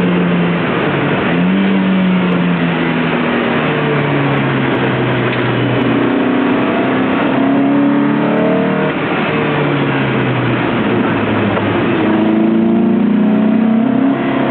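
Lotus Elise engine driven hard on a race track, its pitch climbing and dropping over and over as the car accelerates, lifts and changes gear.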